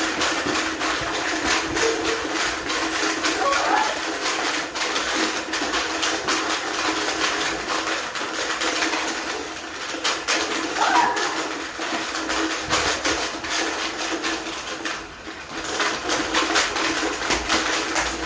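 Small plastic balls rattling continuously inside plastic containers belted at the waist, shaken hard by hip movements, with balls now and then dropping out onto a tile floor.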